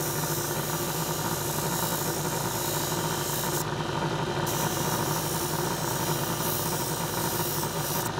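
Small bench-mounted disc sander running steadily, its motor humming, with a high abrasive hiss as a stainless steel bolt head is held against the sanding disc to polish it. The hiss drops out for about a second near the middle, then resumes.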